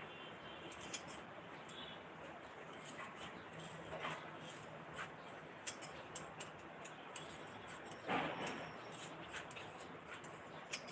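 Faint scattered clicks and light rustling from hands handling a pile of material, with a brief louder rustle about eight seconds in.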